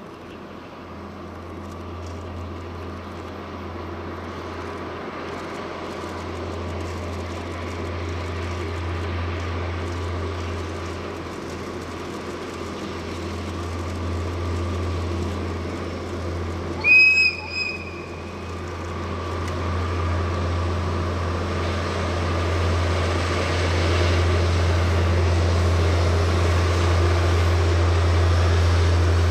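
Diesel train approaching, its engine and rail noise growing steadily louder. About two-thirds of the way in it sounds a short high-pitched whistle blast, then a brief second one.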